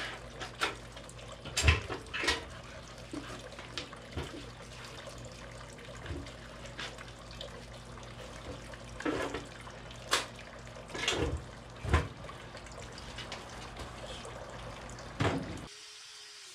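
Irregular knocks and clatter of a wooden log being handled and shifted on a folding workbench, a dozen or so separate hits over a steady low hum. The sound cuts out about a second before the end.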